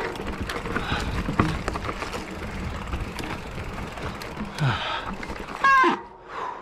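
Mountain bike rolling over rocky trail: tyres on rock with rattles and knocks from the bike. A short, loud squeal comes near the end, and the riding noise stops just after it.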